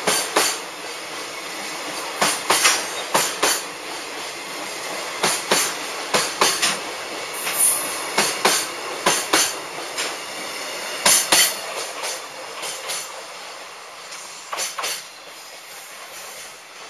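Freight train of container flatcars rolling past, the wheelsets clacking over rail joints in quick groups over a steady rumble. The sound fades near the end as the tail of the train moves away.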